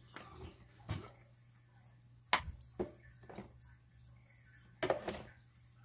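A few light plastic clicks and knocks as the blender jar's lid is handled and its small cap lifted off and set on the counter. The sharpest knock comes a little past two seconds in and another cluster comes near the end, over a faint steady low hum.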